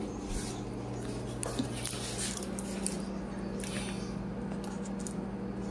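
A low steady electrical hum, with soft handling rustles and a few light clicks as a plastic jar is picked up and moved about.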